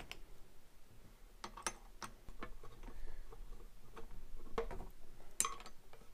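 Light, scattered clicks and ticks of a small screw being worked in by hand through the plastic top disc into the auger's hex shaft, with a few sharper taps as the parts are handled.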